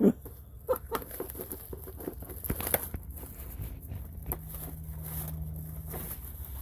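Gift wrapping paper being torn and crinkled off a box of candy, in irregular rustles and sharp little tears.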